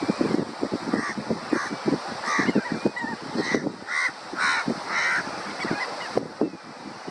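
Crab-plovers calling, short loud calls repeating about twice a second, mixed with thin gliding whistled notes, over a low rushing noise.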